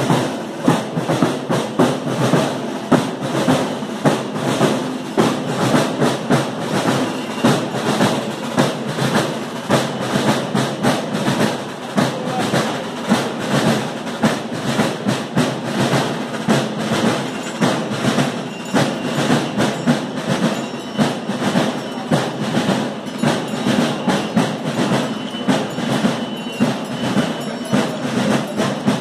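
Fast, steady rhythmic clattering percussion with music under it, going on without a break.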